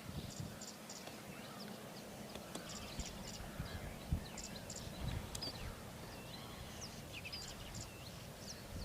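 Outdoor birdsong at a lakeshore: many small birds chirping and whistling, with short high notes repeated in quick pairs, over a soft rumble and a few low thumps.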